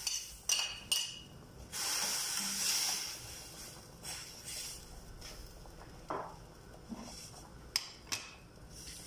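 A metal spoon clinking and scraping on a plate as chopped tomato is pushed off into a pan, with about a second of hissing two seconds in. A spoon then stirs in the pan, with a couple of sharp clinks near the end.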